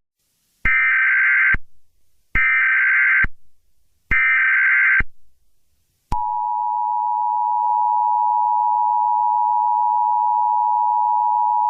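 Emergency Alert System SAME header: three short bursts of warbling digital data tones, each under a second and spaced about a second and a half apart. About six seconds in, a click is followed by a steady, unbroken attention tone.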